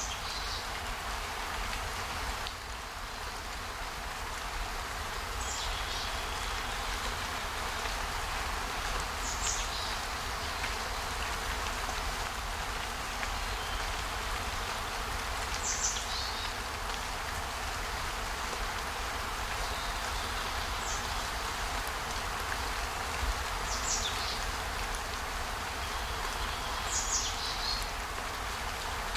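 Steady rain-like hiss, with a short, high call falling in pitch from a small animal, repeated about every four to six seconds.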